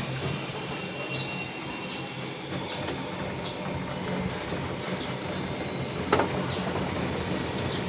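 LG washing machine running with its drum turning after the repair: a steady low motor hum with a thin high whine that slowly falls in pitch, a few light clicks, and one sharper click about six seconds in.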